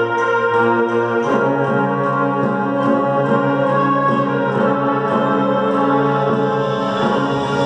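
Wind orchestra playing a slow passage of held chords, woodwinds and brass together; the chord changes about a second in.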